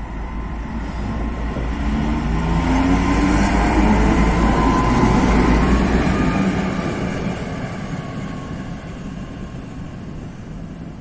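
PKP Cargo ST44 diesel locomotive, with its two-stroke V12 engine working hard, passing close by and then moving away. The sound grows louder to a peak about four to six seconds in, then fades as the locomotive pulls away.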